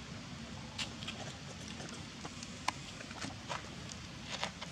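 Outdoor ambience: a steady low rumble with scattered short, high chirps and clicks, the sharpest a little under three seconds in.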